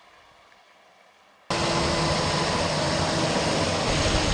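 A faint distant hum, then, about a second and a half in, a sudden jump to a loud, steady rush of spraying water and wind, with the whine of a Streamline Thrasher V3 RC jet boat's electric motor and jet pump at speed, heard from a camera mounted on the boat.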